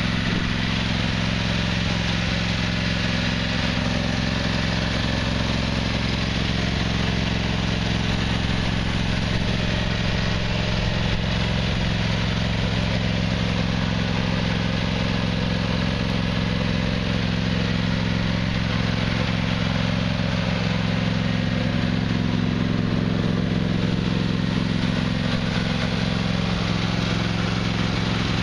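John Deere X155R ride-on mower's Briggs & Stratton engine idling steadily, its note unchanging throughout.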